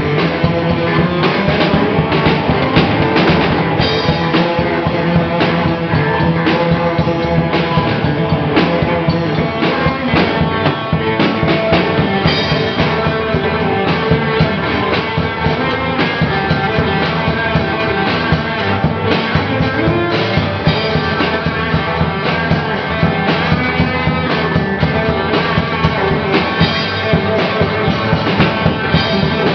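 Live rock band jamming: a drum kit with cymbals and bass drum under electric guitars, playing loud, steady punk-style rock with no vocals.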